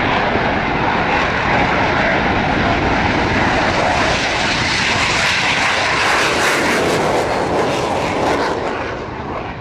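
Saab JAS 39 Gripen fighter jet passing with its Volvo RM12 turbofan engine running, a loud, steady jet noise. It is harshest and most crackling about six to eight seconds in, then starts to fade near the end.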